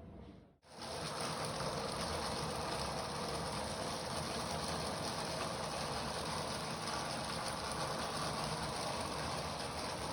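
3D-printed Stirling engine and its plastic walking linkage running, giving a steady, rapid mechanical clatter. It starts after a brief cut to silence about half a second in.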